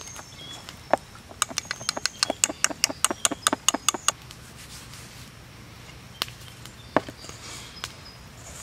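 Wire whisk clinking against a stainless steel mixing bowl while stirring thick bread dough: a fast run of ringing metallic clicks for about three seconds, then a couple of single taps.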